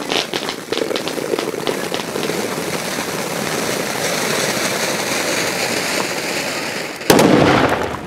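Ground firework fountain spraying sparks: crackling at first, then a steady hissing rush, with a sudden loud bang near the end.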